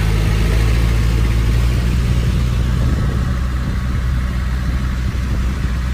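A small boat's motor running steadily while under way, a low even hum with water and wind hiss over it.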